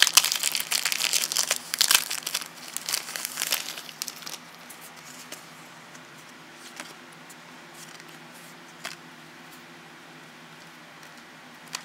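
Foil Yu-Gi-Oh! booster pack wrapper crinkling as it is torn open, for about the first four seconds. After that it goes much quieter, with a few soft clicks as the trading cards are handled.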